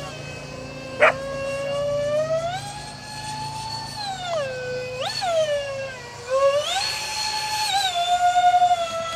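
Electric ducted fans of a Freewing Su-35S radio-controlled jet whining, the pitch rising and falling several times as the throttle is opened and closed through aerobatic manoeuvres, with a rush of air added over the last few seconds. A sharp click about a second in.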